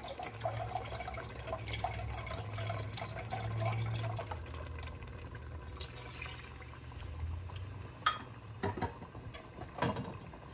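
Chicken broth poured from a carton into a glass measuring cup, then tipped from the cup into a stainless steel pot of curry. A few sharp knocks near the end.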